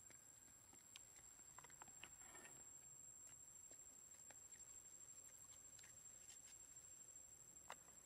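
Near silence: faint outdoor background with a steady thin high tone and a few scattered soft clicks and rustles.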